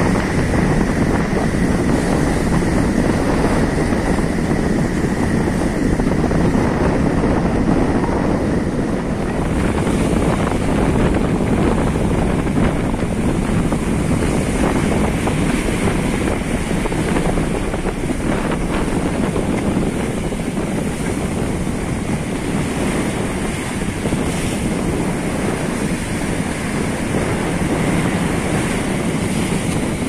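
Heavy ocean surf breaking and washing over breakwater rocks, a loud steady rush that swells and eases, with wind buffeting the microphone.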